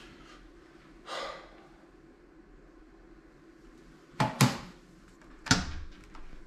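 Objects being handled near the floor: a short rustle about a second in, then two loud knocks or thuds, the first about four seconds in and the second a second and a half later, over a low steady room hum.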